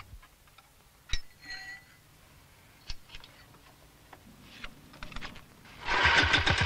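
Metal clicks and knocks of pins being fitted into a steel frame, one with a short metallic ring about a second and a half in. Near the end, the snail's small 7-horsepower engine starts suddenly and runs with an even, rapid beat.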